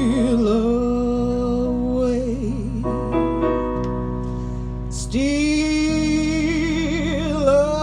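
A singer holds a long note with wide vibrato over soft keyboard chords in a slow gospel spiritual. The voice drops out for a few seconds of keyboard chords alone, then comes back about five seconds in on a new sustained note.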